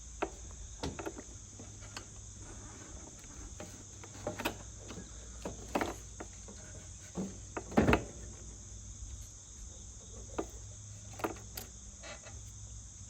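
Crickets chirping steadily, with scattered short knocks and clunks as a new lawn-mower battery is handled and set into the mower's battery tray. The loudest clunk comes about eight seconds in.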